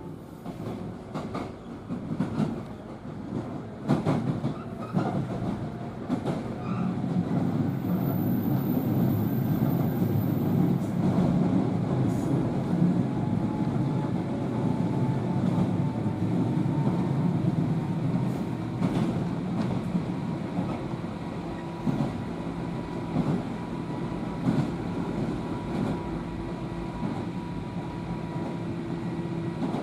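JR 103 series electric train heard from inside a passenger car, getting louder over the first few seconds, then running steadily with the rumble of motors and wheels on rail. A faint whine runs underneath, and a few sharp clacks come from the wheels over rail joints.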